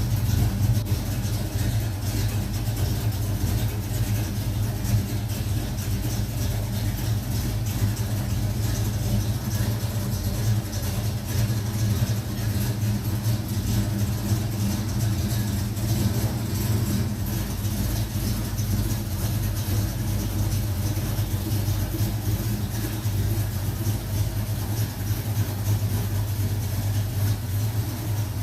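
Ford 351 Windsor V8 running at a steady idle, just after its Holley 600 four-barrel carburetor had its leaking gaskets replaced.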